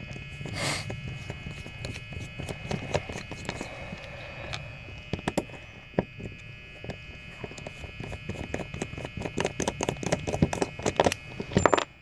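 Rapid, irregular small metal clicks and ticks of a screwdriver turning and taking the parts off a Sargent mortise cylinder lock, over a steady low hum.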